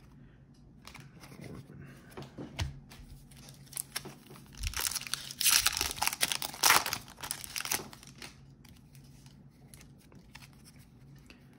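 A trading-card pack wrapper being torn open and crinkled. The tearing is loudest from about five to seven seconds in, with lighter clicks and rustles before and after it.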